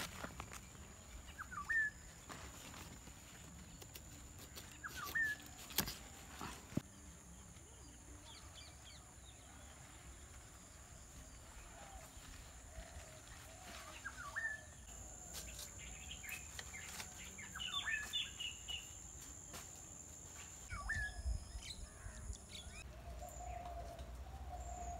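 Birds chirping: short rising calls repeated every few seconds over a thin, steady high-pitched tone, with a few sharp clicks about six seconds in.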